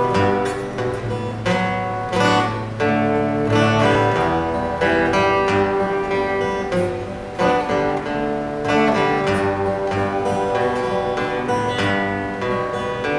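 Two acoustic guitars playing a song's instrumental introduction, strummed chords with picked notes.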